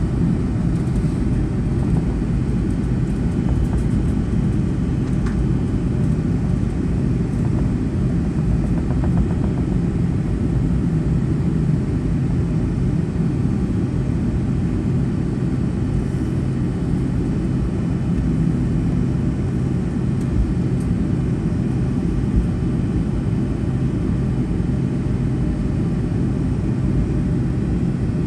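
Boeing 757-200 cabin noise on the ground after landing: a steady low rumble, with no single event standing out.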